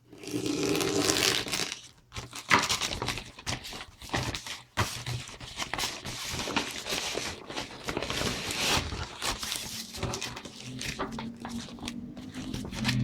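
A mailing package being torn open and its wrapping crumpled by hand: irregular tearing and crinkling rustle broken by sharp crackles.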